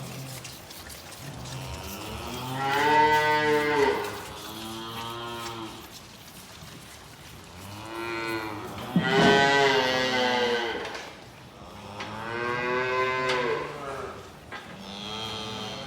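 Calves mooing at bucket-feeding time: about five long calls one after another, some overlapping, from more than one calf.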